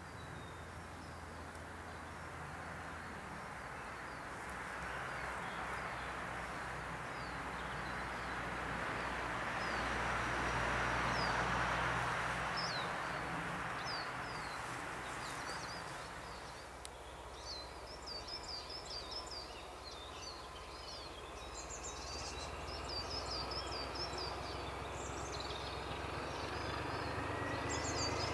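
British Rail Class 14 diesel-hydraulic locomotive D9555 drawing slowly closer, its diesel engine a low steady hum, with a faint rising whine near the end as it picks up. Birds chirp over it in the second half.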